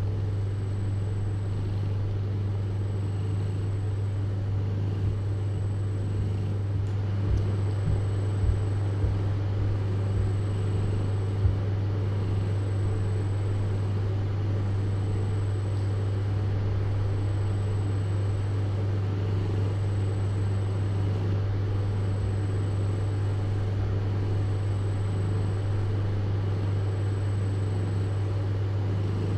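Steady low hum with a faint high whine that comes and goes, and a few soft knocks between about five and twelve seconds in.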